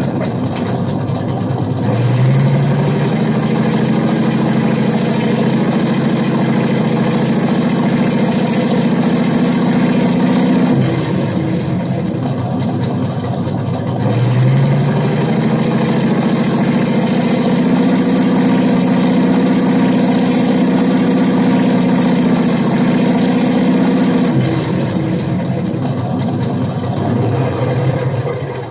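Simulated Panther tank engine from an RC tank sound pack, idling, then stepping up to a higher steady run about two seconds in. It drops back to idle near the middle, steps up and holds again, and settles to idle for the last few seconds.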